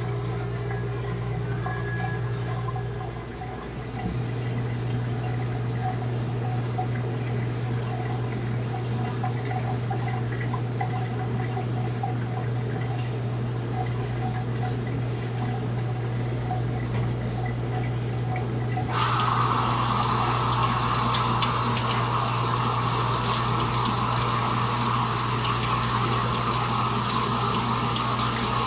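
A steady low hum. About two-thirds of the way through, a water tap is turned on and runs in an even, loud rush, as when wetting a splash-and-go whetstone.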